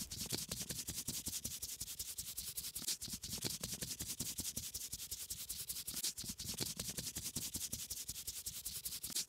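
Paintbrush rubbing and scratching on paper in quick, repeated strokes.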